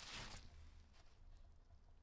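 Paper towel rustling briefly, for about half a second, then near silence with a few faint ticks from handling.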